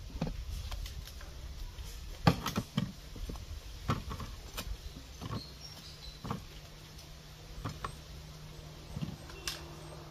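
Metal kitchen tongs clicking and fried dumplings being set down on plates: a scattered series of short, light clicks and knocks at irregular intervals.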